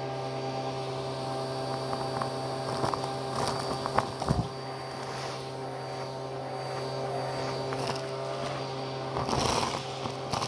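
Vacuum cleaner running with its hose nozzle in a pile of dust, lint and small hard debris, a steady motor hum. Crackling and rattling come about four seconds in and again near the end as the bits are sucked up the hose.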